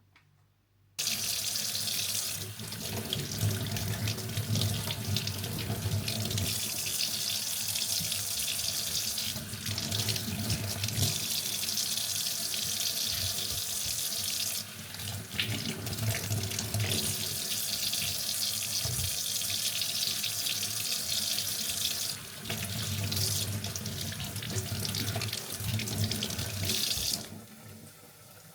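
Kitchen tap running into a sink: the water comes on suddenly about a second in, runs steadily with two brief changes in the flow, and is turned off near the end.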